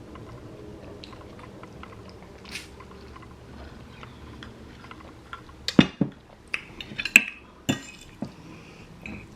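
A person eating Korean black bean noodles close to the microphone: quiet chewing at first, then from about six seconds in a quick run of sharp clicks and knocks, the loudest sounds here.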